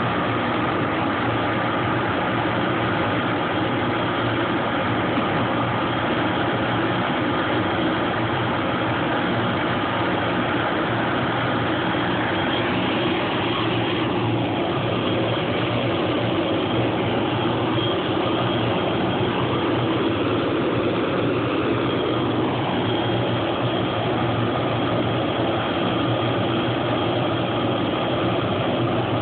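Hughes 369D helicopter running on the ground with its rotor turning: the Allison 250-C20B turboshaft's steady whine over the constant noise of the main rotor, holding an even level.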